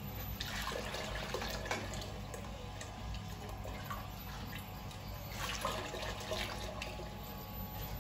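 Liquid splashing and pouring, with scattered clinks and knocks of utensils over a steady low hum.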